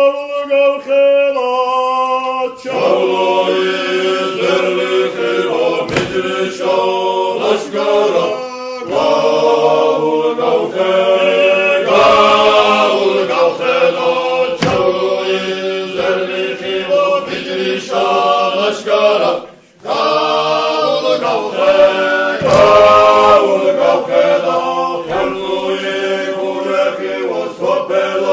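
A choir chanting in several-part harmony without accompaniment, holding one chord after another; the singing briefly breaks off about two-thirds of the way through.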